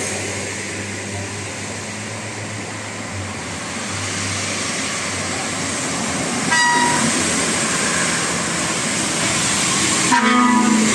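A large road vehicle, plausibly a tour bus, passing with a steady rush of engine and tyre noise that grows louder partway through. Its horn gives a short toot about two-thirds of the way in and a louder blast of several tones near the end.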